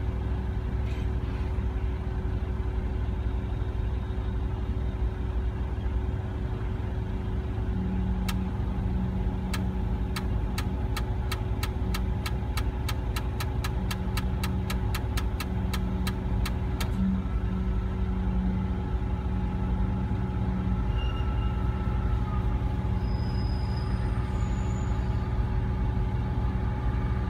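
Heavy lifting crane's diesel engine running steadily with a low rumble and a constant hum while the crane holds a load on its hook. From about eight seconds in, a run of sharp clicks about two a second goes on for roughly nine seconds, then stops.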